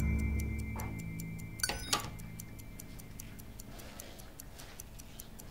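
Clock ticking fast and evenly, with two sharp, louder clicks close together about a second and a half in.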